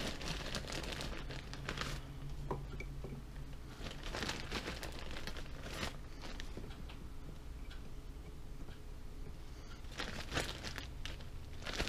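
Plastic bag of frozen tater tots crinkling in several bursts as it is handled and tots are taken out by hand.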